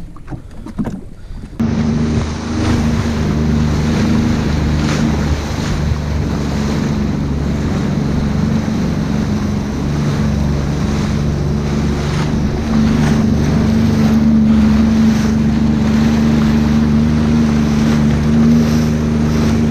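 Sea-Doo Fish Pro 170 jet ski's engine running steadily under way at sea, with wind and rushing water over it; it gets a little louder about thirteen seconds in. The first second and a half is quieter, with a few sharp knocks, before the engine comes in.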